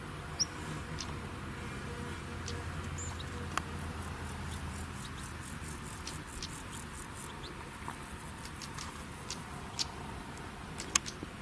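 Outdoor grassland ambience: insects ticking in short, evenly spaced runs, with scattered sharp clicks and a faint low hum that fades out about five seconds in.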